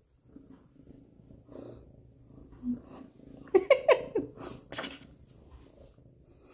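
Domestic cat purring while being stroked. A brief cluster of loud, short, sharp sounds comes a little past halfway.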